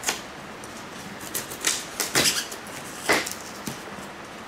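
Handling noise as metal wing spars are worked loose from a styrofoam packaging tray: a handful of short scrapes and rustles, with the busiest cluster around the middle.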